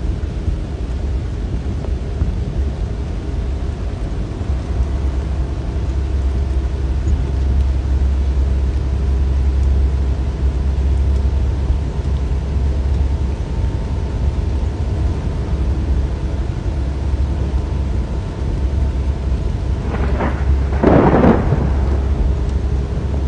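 Steady low rumble of a truck's engine idling, heard inside the cab, with faint steady hum tones above it. Near the end, a brief louder noise rises over the rumble.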